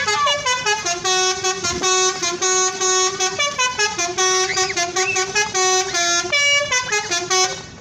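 Tour bus 'telolet' horn, a multi-tone musical air horn, playing a quick melody of short stepped notes over and over, then stopping abruptly just before the end.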